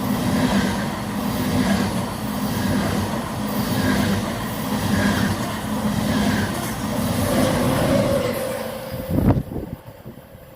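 ICE high-speed train running through at speed: loud rushing rail noise with a regular pulse a little under once a second. About nine seconds in, a last sharp burst, and then the noise drops away quickly as the end of the train passes.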